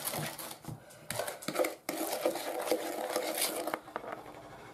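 Metal spoon beating egg yolks and sugar in a bowl by hand, with quick scraping and clinking against the bowl's side. It eases off about three-quarters of the way through.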